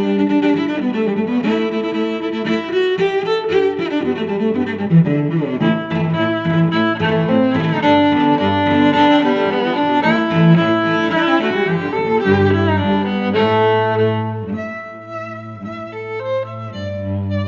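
Music with bowed strings, cello and violin, playing a busy run of notes that thins to a quieter, sparser passage near the end.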